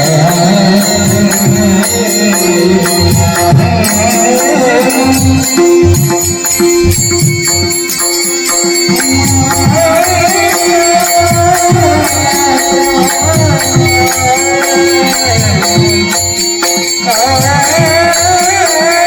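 Devotional kirtan singing: a solo voice sings a wavering melody over a steady held drone, while a drum and small hand cymbals keep an even beat.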